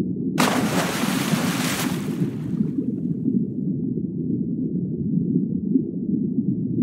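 Ocean water sound: a steady low rumble, with a hissing rush of water about half a second in that fades away over about two seconds, and another rush starting near the end.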